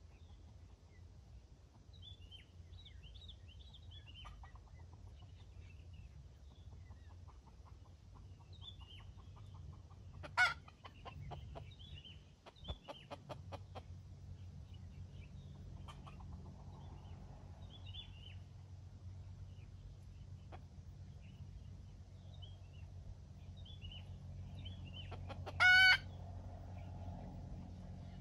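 Rooster clucking, with two short loud calls, one about ten seconds in and one near the end. Small birds chirp in the background.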